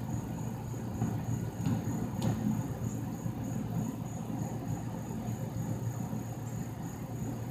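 Crickets trilling steadily in one continuous high tone over a constant low rumble, with a couple of faint clicks about two seconds in.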